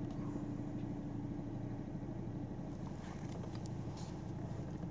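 Steady low running hum of a Peugeot car heard from inside the cabin, with a faint steady tone in it. A few light clicks come near the end.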